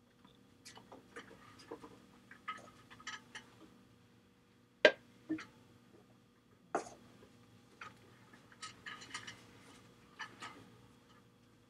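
Scattered small clicks and taps at an irregular pace, the two loudest about five and seven seconds in, over a faint steady hum.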